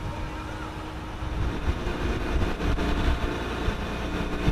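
Fishing boat's engine running with a steady low drone, getting a little louder about a second and a half in.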